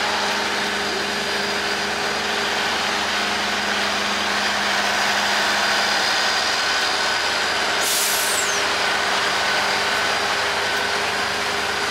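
Locomotive engine idling with a steady hum, and a sharp burst of air hissing out about eight seconds in, as when a brake air hose is opened at the coupling between locomotive and carriage.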